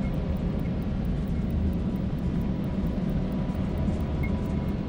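Ambient drone music: a steady low rumble with faint sustained tones above it and a few soft high pips near the end.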